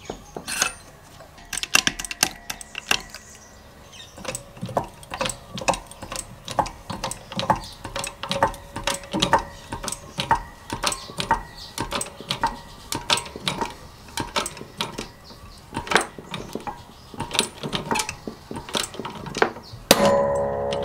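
Hand-pumped hydraulic shop press working: a run of uneven sharp metallic clicks and clanks, about one to two a second, as the ram presses a ball bearing into an aluminium two-stroke engine crankcase half. Music comes in about a second before the end.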